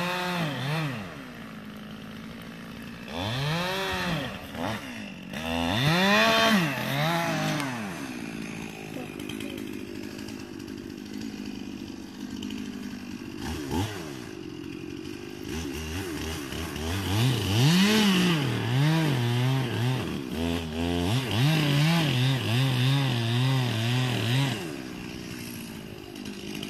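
Stihl MS 291 two-stroke chainsaw revved up and down in repeated bursts, settling lower for several seconds, then held at high revs with the pitch wavering under load as it saws into an oak trunk. The engine drops back to idle near the end.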